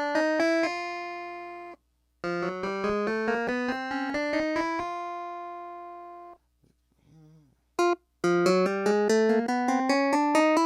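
Clavinet played in a high octave: quick rising runs of bright, plucked-sounding notes, each ending on a held note that is cut off, with short breaks between the runs.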